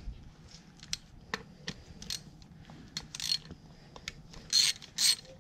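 Hand ratchet with a 5 mm hex (Allen) bit backing out the small bolts that hold the TCM plate to a Nissan RE5R05A transmission valve body: scattered light metal clicks and taps, then short bursts of ratchet clicking about three seconds in and again near the end.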